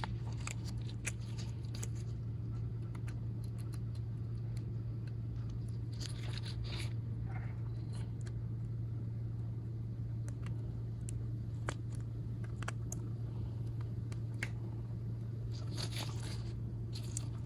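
Faint scattered clicks and light scraping of a small phone part being wiggled into place by hand, with a cluster of handling noises about six seconds in and again near the end. A steady low hum runs underneath.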